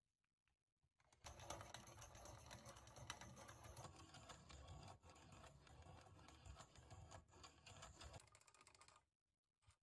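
Vintage 1920 Avanti pencil sharpener cutting a pencil: a fast, faint rasping clatter of the cutter shaving wood, starting about a second in and stopping near the end.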